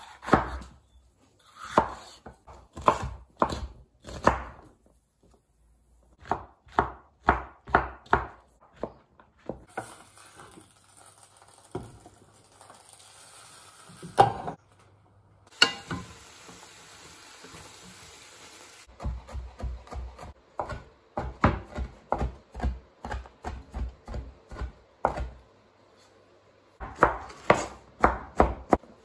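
Chef's knife chopping red capsicum and zucchini on a wooden cutting board: runs of sharp knocks, one to a few a second, quickening into rapid dicing in the later runs. From about ten to nineteen seconds in, a steady hiss takes over, with only an odd knock.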